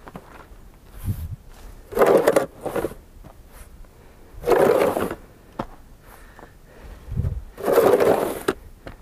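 Snow shovel scraping as it pushes snow along a path, three strokes about two and a half seconds apart, with a few dull thumps between them.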